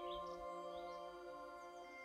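Soft ambient music of long held tones, with a few small bird chirps over it about half a second in and a faint higher trill near the end.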